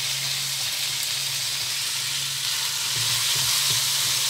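Raw beef pieces sizzling in hot oil and spices in a wok, a steady frying hiss. Near the end a wooden spatula stirs them, adding light scraping ticks against the pan.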